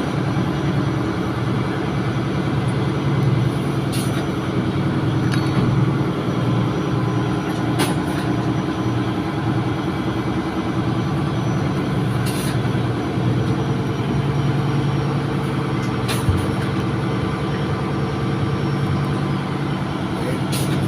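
Steady drone of a ship's engine-room machinery running, with a constant low hum. A few short, sharp clicks, spaced about four seconds apart, sound over it.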